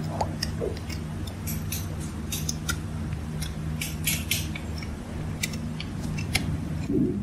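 Hoof knife paring away the excess old sole of a horse's hoof: short, irregular scraping cuts, over a steady low hum.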